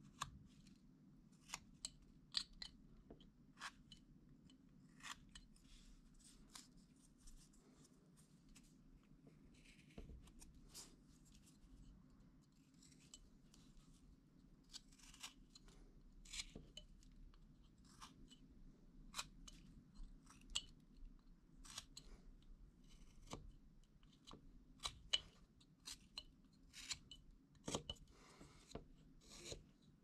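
Carving knife cutting into a small piece of wood: short, crisp slicing strokes at an irregular pace, roughly one a second, over a faint low hum.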